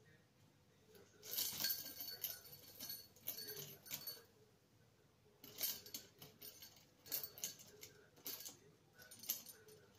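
Small metal bell jingling as a budgerigar pecks and tugs at it: a long run of jangling starting about a second in, then short jingles several more times.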